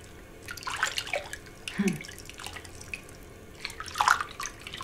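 Bathwater sloshing and splashing as someone shifts in a bathtub, in three short bursts of dripping and splashing.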